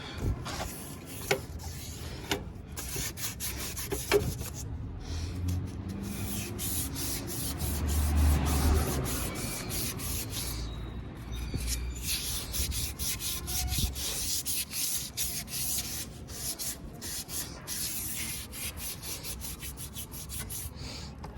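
Sanding by hand: rapid back-and-forth rubbing strokes that go on without a break, with a few sharp knocks in the first few seconds.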